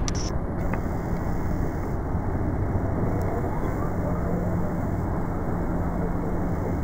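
Steady rushing roar of the Iguaçu Falls' water, even and unbroken, with a faint low hum under it.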